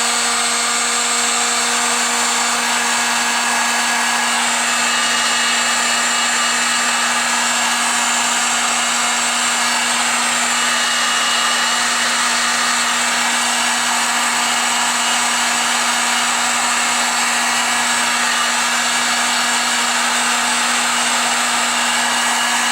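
Electric heat gun running steadily: a constant motor hum under a loud rush of blown hot air. It is heating PEX tubing on a brass fitting to soften it so the tubing slides off.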